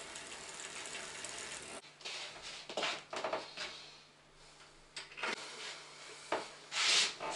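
Fast ratcheting clicks for about two seconds, followed by a few separate knocks and clunks from handling the bicycle.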